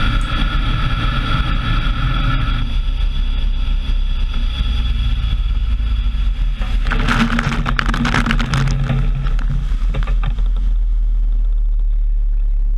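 Motorboat at speed, heard from a camera on an arm just above the water: a steady low engine rumble with rushing water and spray. About seven seconds in, a hissing burst of splashing water; in the last couple of seconds the high hiss fades and only the rumble remains.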